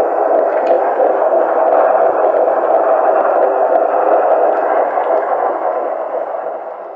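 A steady, dense wash of noise in a dance soundtrack, centred in the middle range with no clear tune or beat, fading out over the last second.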